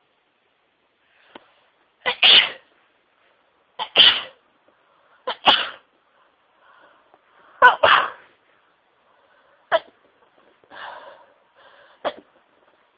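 A woman in a sneezing fit set off by dust: a string of loud sneezes every second or two, one of them a quick double, then two shorter, sharper sneezes with breathy noise between them.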